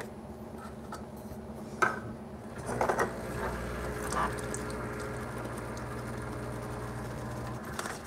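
A click, then the Breville Barista Pro's pump runs with a steady hum for about five seconds, pushing hot water through the group head to preheat the portafilter, and cuts off suddenly.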